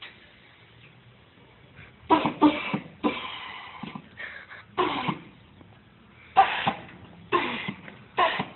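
Air-bag suspension on a 1966 van: the solenoid valves hiss in about seven short, sharp bursts, starting about two seconds in, as the air bags are filled and dumped to raise and lower the body.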